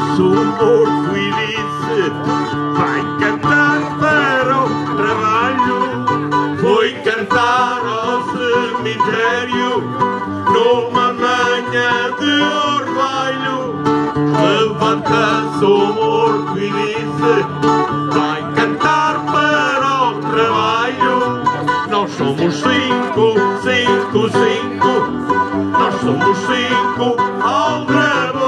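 Background music: a folk tune on guitar and other plucked strings, playing steadily.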